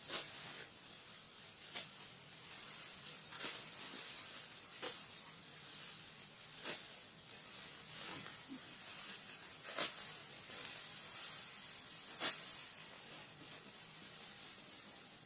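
Ripe rice stalks being cut by hand with a sickle: a crisp rasp every one to two seconds as each handful is sliced, over a steady hiss.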